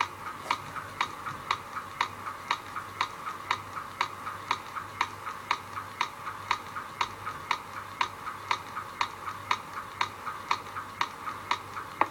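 Steady clock-like ticking, about four ticks a second, over a faint low hum: the ticking percussion intro of a song's backing track.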